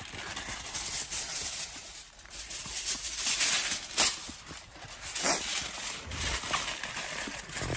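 Aluminium foil crinkling and rustling in irregular bursts as food is wrapped in it, with one sharper crackle about four seconds in.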